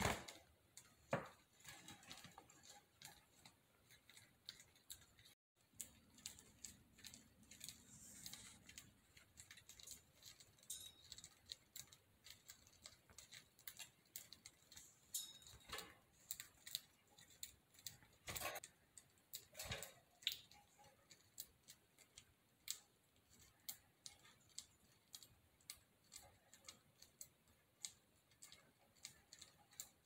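Budgies cracking and husking millet seeds from a millet spray: a quiet, irregular patter of tiny clicks, with a few sharper ones now and then.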